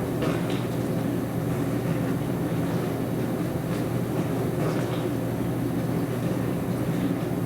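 Dishwasher running: a steady low hum from its pump motor with a haze of noise over it, and a few faint brief ticks.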